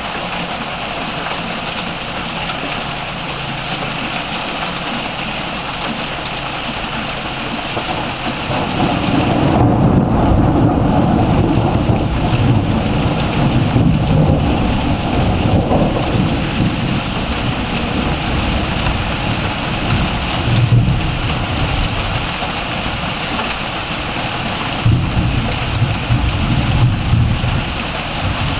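Heavy rain falling steadily, with a long low rumble of thunder building about a third of the way in and lasting several seconds, and shorter rumbles later on.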